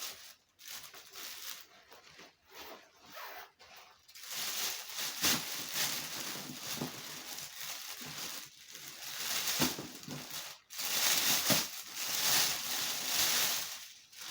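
Packaging being handled and torn open by hand: irregular crinkling and tearing rustles, busier and louder from about four seconds in.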